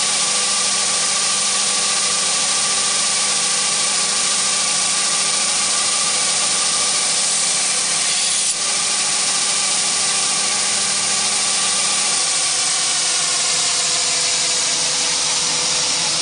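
Belt grinder running steadily: its motor and abrasive belt over a large contact wheel make a continuous whir and hiss, with a brief dip a little past halfway.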